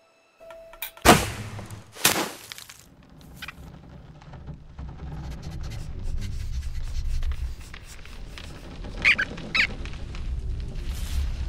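Cartoon sound effects: two sharp whooshes about one and two seconds in, then a low rumbling noise that slowly builds, with two short high squeaks near the end.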